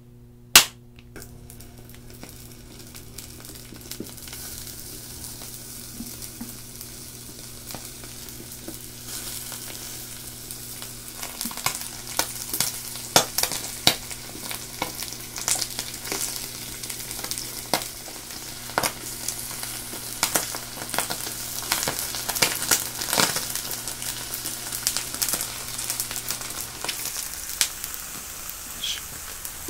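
Slices of grilling cheese sizzling in a nonstick frying pan, the sizzle building over the first several seconds into dense spitting and crackling pops. A single sharp click comes about half a second in, and a steady low hum underneath stops near the end.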